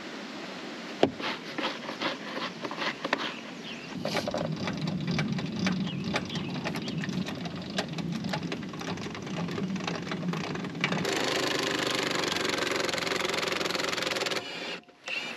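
Plastic levelling blocks clatter and click, then a small motor runs steadily. About eleven seconds in, a Milwaukee cordless drill spins the screw of a trailer's scissor stabilizer jack with a steady whir that cuts off shortly before the end.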